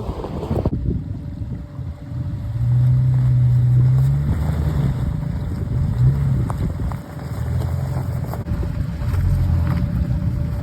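Jeep Wrangler engine running under load off-road, its pitch rising and falling as the throttle is worked, loudest from about two and a half to four seconds in, over a low rumble with some wind noise on the microphone.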